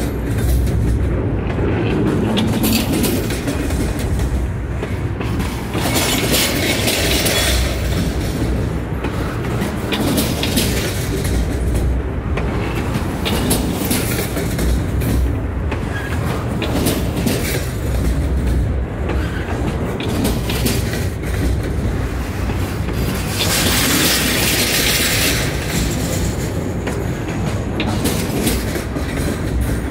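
Double-stack intermodal container train rolling past on its well cars: a steady low rumble of steel wheels on rail, with repeated clicks from the wheels and two stretches of louder hiss.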